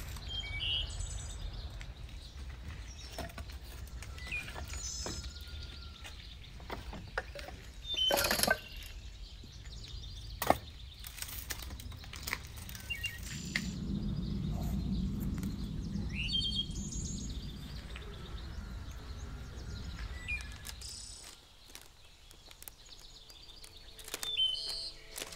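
Small birds chirping here and there, with the knocks and clatter of dry sticks being dropped into a wicker basket; the loudest knocks come about eight and ten seconds in. A low rumble rises and fades in the middle.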